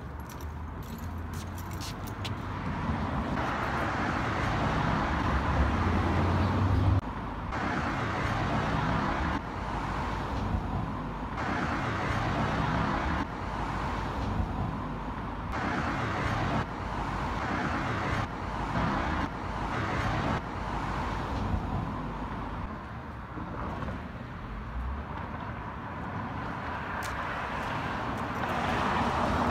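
Street traffic noise: cars passing on the road, one swelling closer over the first several seconds, with the background changing abruptly every second or two.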